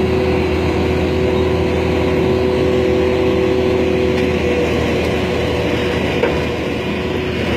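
Diesel engine of an Ingersoll Rand single-drum road roller running steadily under load as the roller drives up steel ramps onto a low-bed trailer. A steady high whine sits over the engine, and part of it stops about halfway through.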